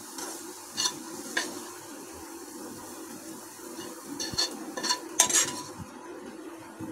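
A spoon scraping and clicking against a non-stick saucepan while diced fried carrot is scooped out into a fried pastry cup, with several separate strokes, the loudest about five seconds in.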